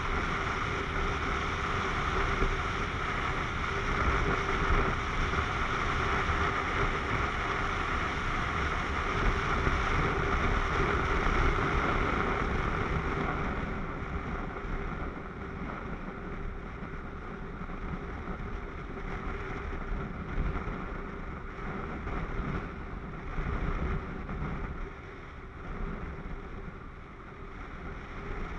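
Wind rushing over a rider-mounted camera on a moving motorcycle, with the Yamaha MT-09's three-cylinder engine running steadily underneath. The rush eases and gets duller about halfway through as the bike slows.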